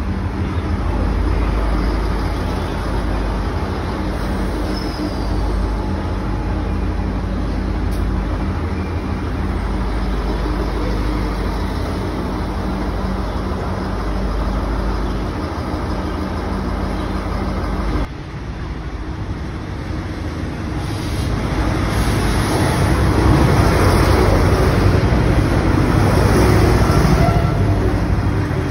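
V/Line Sprinter diesel railcar pulling out of a platform: a steady engine drone over a low rumble. After an abrupt cut about two-thirds of the way in, a Sprinter runs close past, its engine and wheel noise growing louder.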